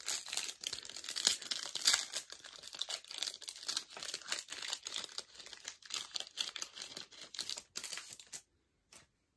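Plastic wrapper of a Topps baseball card pack crinkling and tearing as it is opened, a dense run of crackles that stops sharply about eight seconds in.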